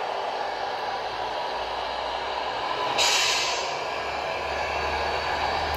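Simulated truck diesel engine sound from a Tamiya MFC-03 sound unit, played through the RC truck's small loudspeaker as the model drives. About three seconds in there is a sudden air-brake hiss that fades within about half a second. Near the end the low engine note grows stronger.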